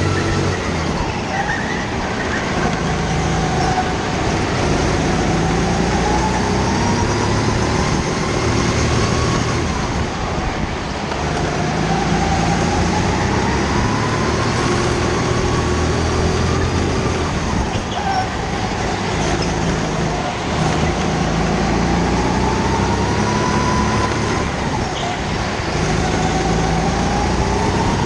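Go-kart's motor heard from the driver's seat while lapping a track, its pitch climbing along the straights and dropping back for the corners about four times over.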